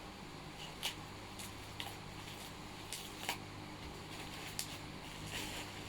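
Rustling and handling of soaked parcel packaging: scattered short rustles and clicks a second or so apart, over a steady low hum.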